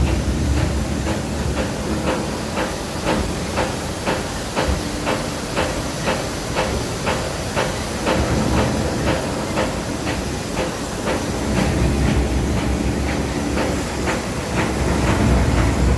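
Hitech-SH10T industrial scrap-fabric shredding system running under load: a steady low rumble and hiss with regular clicking, about two to three clicks a second.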